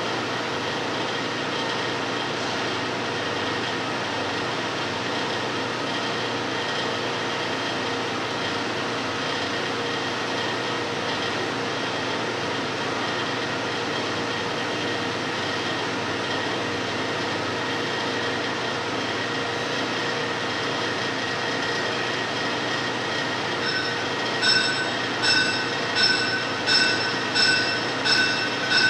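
Large motor-driven machine with a wheel at each end, running with a steady whir and a few faint fixed tones. About 24 seconds in, a rhythmic high-pitched ringing squeal starts, pulsing about three times every two seconds.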